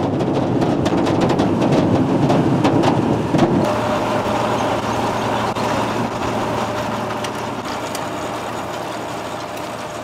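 Sugar beet harvester's elevator unloading, with beet clattering into a trailer in many quick knocks over the machine noise. About three and a half seconds in, this gives way to the steady hum of the harvester's air-cooled Deutz six-cylinder engine and running machinery.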